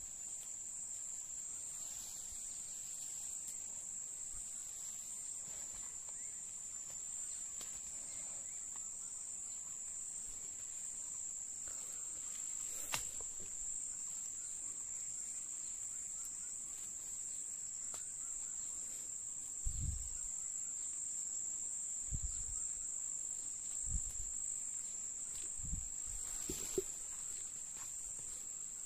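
Insects chirring in one steady, unbroken high-pitched drone. A few soft low thumps come in the second half.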